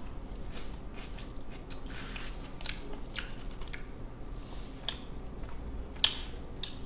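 A man chewing a mouthful of rice and side dishes from a convenience-store lunch box, eaten with chopsticks, with scattered short wet clicks. One sharper click comes about six seconds in.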